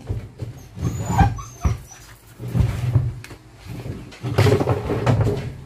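A dog whining and whimpering several times.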